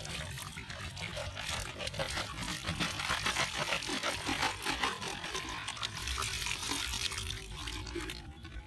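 Water splashing and pouring as a plastic bottle is shaken, emptied and dipped in a shallow pool, a dense crackling splash that dies away just before the end.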